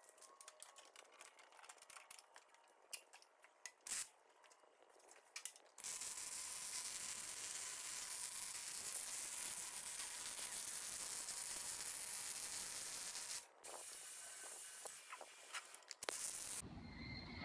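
MIG welding on steel plate: a few light clicks and taps, then the arc running as a steady sizzling hiss for about seven seconds, a brief break, and a second, quieter stretch of welding.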